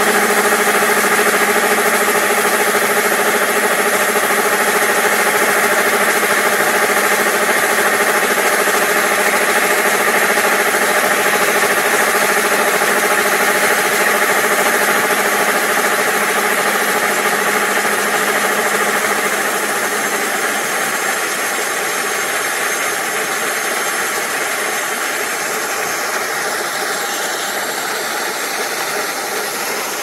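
Kubota ER470 combine harvester's diesel engine running at a steady speed while it unloads grain through its auger into a truck; the sound eases slightly after about 19 seconds.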